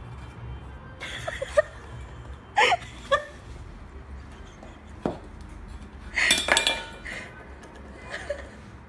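Several sharp clinks and knocks a second or more apart, like a metal food bowl being struck, the busiest cluster about six seconds in, with short pitched sounds mixed into some of them.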